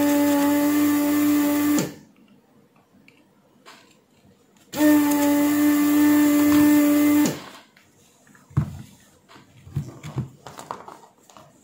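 Vacuum pump of a Weller desoldering gun running in two bursts of about two seconds each, a steady hum over a hiss, sucking solder from the leads of a shorted MOV to free it from the board. A few light knocks of the board being handled follow near the end.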